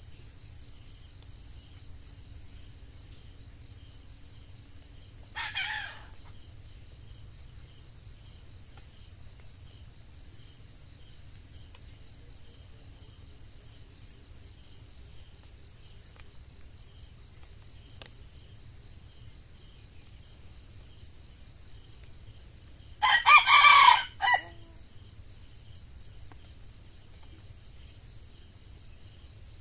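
Red junglefowl crowing: one loud, short crow about 23 seconds in, with a shorter, fainter call about five seconds in. A steady high drone of crickets runs underneath.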